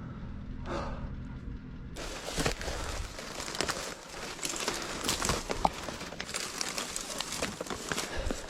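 Footsteps and scrambling on a steep slope of loose, crumbly rock and dry brush: a dense crunching and crackling with many small clicks, starting about two seconds in.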